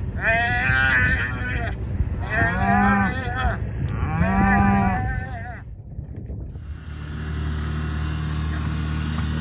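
Calves bawling, three long calls one after another, over a low rumble. After a cut about seven seconds in, a side-by-side utility vehicle's engine runs with a steady hum.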